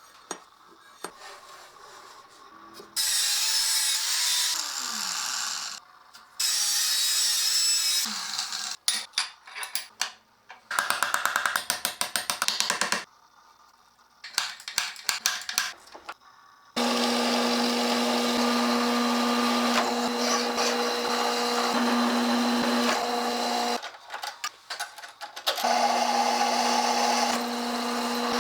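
Metalworking shop tools in short cuts: hissing bursts of grinding, then fast rhythmic back-and-forth strokes of a hand tool, then an electric power tool running steadily with a steady hum, stopping briefly near the end.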